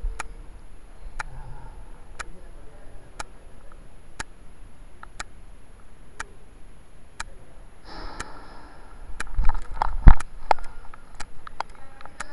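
Sharp ticks about once a second, then from about eight seconds in a louder muffled commotion with several sharp knocks, the loudest about ten seconds in.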